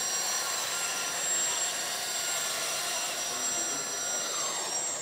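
Hydraulic double pump of a LESU 1/14 RC excavator running with a steady high whine and hiss while the swing motor turns the upper body around. One tone dips in pitch near the end.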